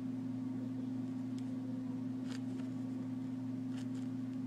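Steady low hum of room and recording noise, with a few faint soft rustles and clicks as hands squeeze and handle a slow-rising foam squishy toy.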